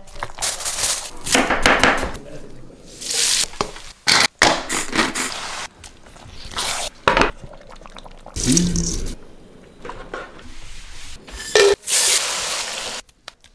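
A string of short cooking sounds cut one after another: food sizzling and frying in a pot, stirring, and knocks of utensils against pots and pans, each stretch starting and stopping abruptly.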